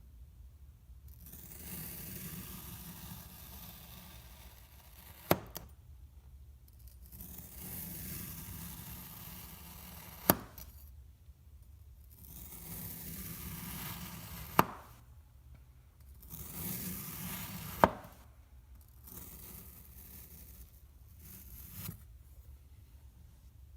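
A knife slicing through kinetic sand: a gritty, crunching scrape as the blade passes through, four times, each cut ending in a sharp click. A softer scraping pass follows near the end.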